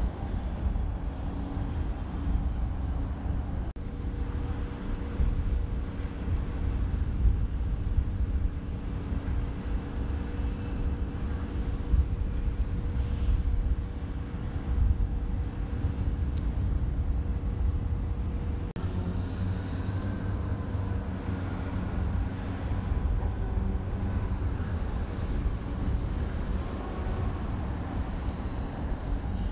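Machinery of a floating grab-dredger crane running with a steady low rumble and a steady hum; the hum changes about 4 seconds in and again about 19 seconds in.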